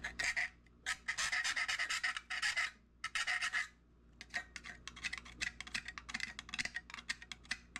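Hand file rasping over the cut metal edge of an old lantern, smoothing off sharp spots: a few long strokes, then quick short strokes about four a second from about four seconds in.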